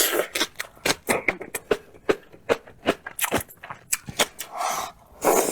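Close-miked eating: crisp, irregular crunching and mouth clicks, several a second, as pickled vegetables are chewed.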